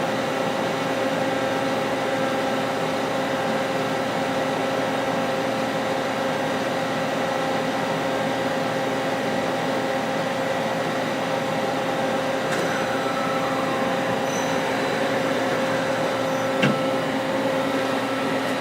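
Hardinge CNC lathe running: a steady mechanical hum with several held tones over a noisy bed, and one sharp click about two seconds before the end.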